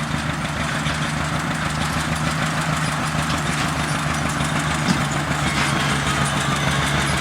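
Tractor engine running at a steady speed, a constant low hum.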